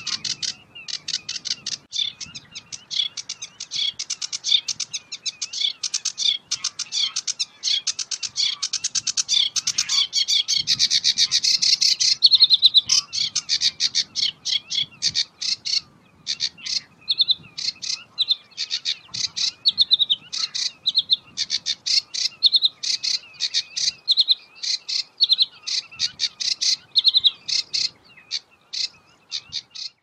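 Sedge warbler singing a long, fast, chattering song of short dry notes mixed with trills, with a brief break about halfway through.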